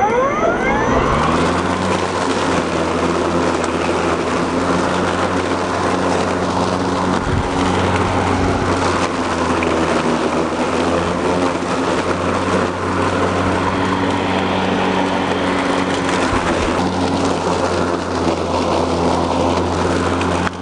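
EGO LM2130 56-volt cordless lawn mower spinning up to speed in the first second, then running steadily with an even whirring hum as its blade mulches a thick layer of dry leaves, with the hiss of leaves being chopped under it.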